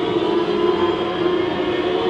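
Several small racing engines running together at a steady speed, their overlapping notes holding a near-constant pitch.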